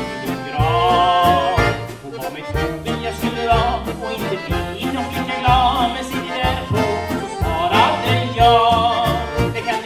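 Old-time Swedish dance band playing, two accordions carrying the melody over electric archtop guitar, upright bass and drums keeping a steady beat.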